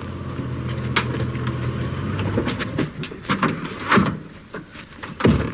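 A vehicle's engine hums steadily, then cuts out about two seconds in. A string of sharp clicks and knocks follows, with a heavier thud near the end.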